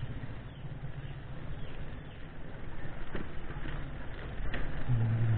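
Mountain bike rolling over a rough dirt-and-gravel track: wind rumble on the camera microphone with the bike rattling and clicking over stones. A low steady hum begins near the end.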